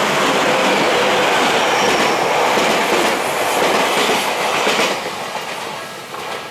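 Tokyu electric commuter trains passing close at speed, with the wheel-on-rail running noise of a Tokyu 7000-series train on the near track loudest. It is loud, then fades after about five seconds as the last car goes by.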